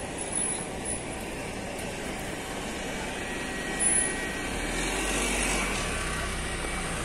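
City street traffic noise, with a motor vehicle passing close by in the second half, its low rumble swelling and fading.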